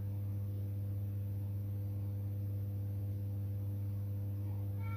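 Steady low electrical hum, one unchanging tone with a few fainter overtones.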